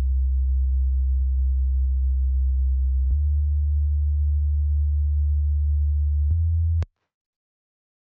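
Synthesized sub-bass sine tone playing three long, very low notes, each a little higher than the last, with a small click at each note change. It cuts off with a click about seven seconds in.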